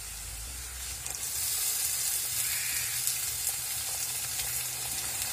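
Sliced onions and coconut pieces frying in coconut oil in an iron pan: a steady sizzle that grows a little louder about a second in.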